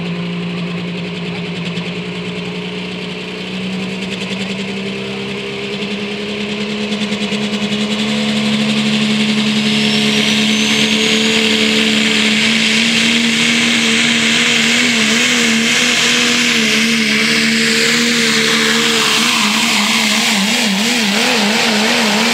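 Super stock diesel four-wheel-drive pulling truck's engine revving up from idle and then running at full throttle as it pulls the sled. A high whine rises about ten seconds in, and in the second half the engine note wavers quickly up and down.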